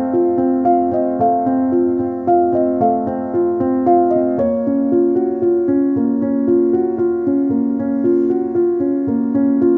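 Background instrumental music with held notes; the chord changes about halfway through.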